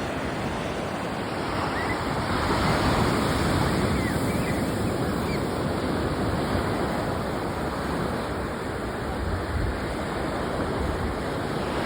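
Sea waves washing onto a winter beach: a steady rushing surf that swells louder a couple of seconds in, then settles back.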